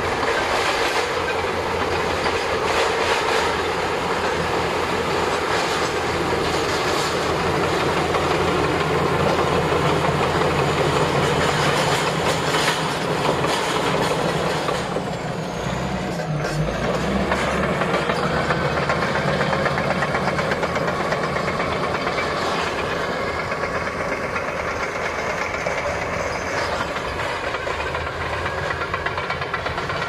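Shantui SD22F crawler bulldozer working: its diesel engine running steadily under load, with the steel tracks clanking and rattling as it moves.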